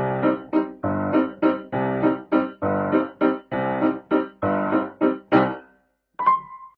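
Background piano music with a bouncy beat of repeated chords, about two a second, stopping near the end, followed by a brief single tone.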